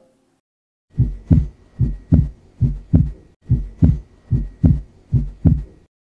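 Stethoscope recording of a heartbeat: six lub-dub pairs at about 75 beats a minute, starting about a second in. Each pair is the first heart sound (S1), then the second heart sound (S2), the closure of the aortic and pulmonary valves.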